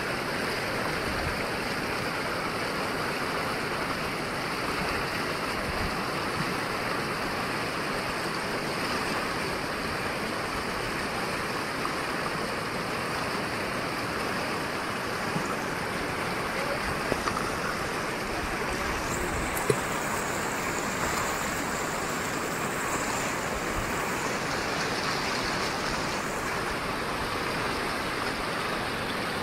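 Fast mountain river rushing over rocks in a steady, even wash of white water, with a few short sharp clicks about two-thirds of the way through.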